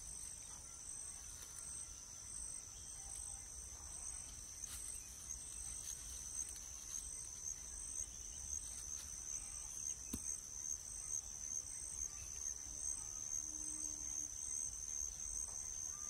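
Steady high-pitched insect chorus: a continuous shrill trill with an evenly pulsing second note above it, growing slightly louder toward the end.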